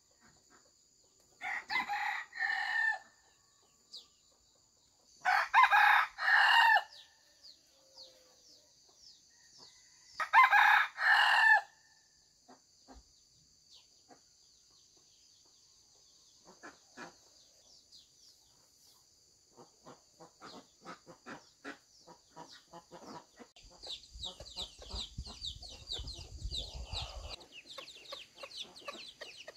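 Rooster crowing three times, each crow about a second and a half long, over a steady high-pitched whine. Scattered short faint chirps and clucks follow near the end.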